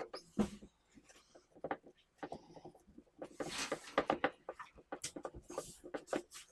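Plant stand parts being handled and fitted together by hand: irregular small knocks and clicks, with a couple of longer rustling scrapes.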